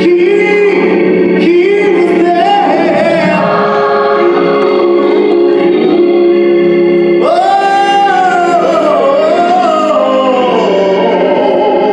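Live gospel singing: a man's amplified voice sings a melody with wavering, held notes over sustained organ chords.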